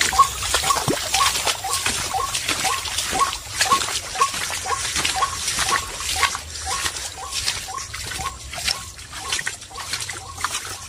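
Footsteps splashing and sloshing through shallow water on a muddy path. Behind them, a white-breasted waterhen's call repeats rapidly, about three short two-note calls a second, fading a little toward the end.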